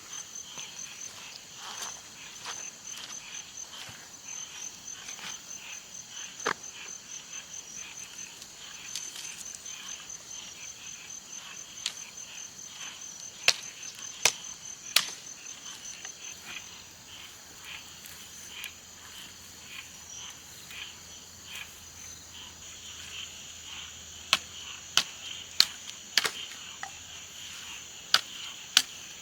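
Insects trilling steadily in a high, rapid pulse, over a light hiss, with scattered sharp clicks and taps that come several in quick succession near the end.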